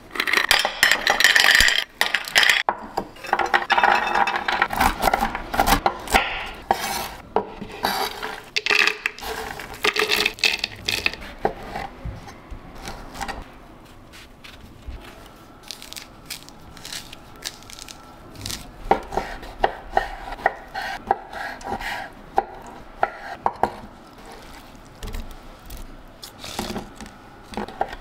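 Whole walnuts clattering against glass as they are poured from a glass jar into a glass bowl, followed by a run of lighter kitchen knocks and clicks as chopped walnuts and orange pieces go into a clear blender cup. The clatter is dense for the first ten seconds or so, then thins out to scattered knocks.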